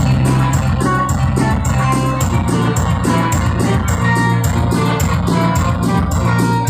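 Amplified live dance music from an orkes tunggal wedding band, with a steady quick beat, a heavy bass line and a melody on top.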